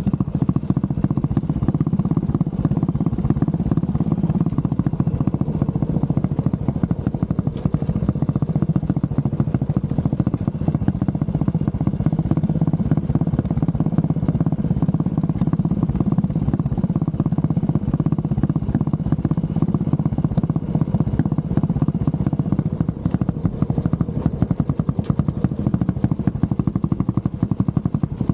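Honda CB400SS's single-cylinder engine running steadily, a dense, even run of low firing pulses.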